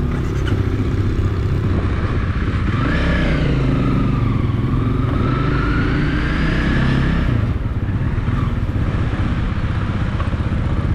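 Honda CRF300L's single-cylinder four-stroke engine running as the bike pulls away at walking-to-low speed. A higher whine dips and then rises in pitch through the middle.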